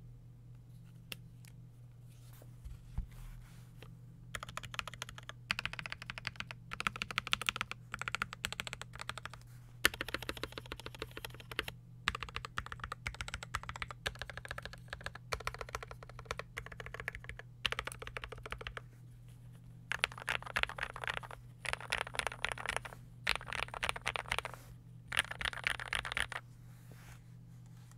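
Typing on a TY87 (PCL87) tenkeyless mechanical keyboard with lubed, filmed Gateron Pro Milky Yellow switches on an aluminium plate. Fast runs of keystrokes start a few seconds in, broken by short pauses, over a steady low hum.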